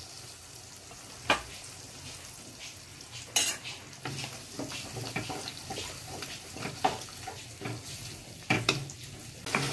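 Slotted wooden spatula stirring and scraping an onion-tomato masala in a kadhai, with a low frying sizzle under it and scattered sharp knocks of the spatula against the pan, the first about a second in.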